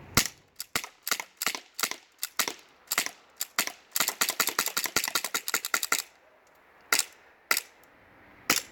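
CO2 blowback airsoft pistol firing a string of sharp shots, about three a second, with the slide cycling on each. A faster flurry of shots comes from about four to six seconds in, then a few spaced shots near the end.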